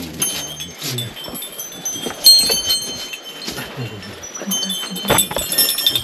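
Several small metal shrine bells ringing and jingling, their high tones overlapping and ringing on, with one sharp loud strike about two seconds in and a fresh cluster of rings near the end.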